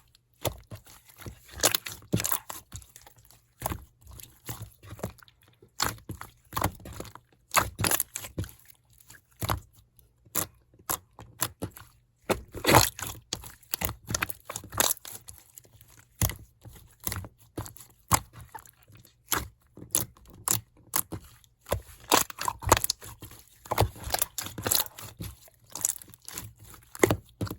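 Irregular crunchy clicks and crackles from something being handled close to the microphone, many short sharp pops at uneven spacing with brief pauses between clusters.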